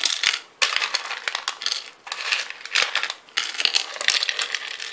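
Dozens of small hard miniature clay dishes clattering and clicking against each other and a metal tin as they are rummaged through and tipped out onto a cutting mat.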